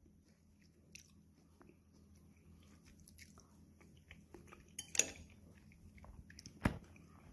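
A metal spoon clinks against a ceramic bowl of soft tofu pudding, with a sharp knock about five seconds in and another near the end, over faint, quiet chewing.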